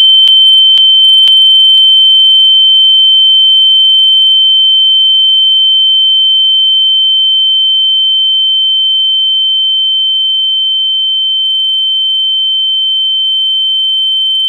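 A loud, steady, high-pitched single electronic tone, held without a break and easing slightly in level. Faint clicks tick about twice a second during the first couple of seconds.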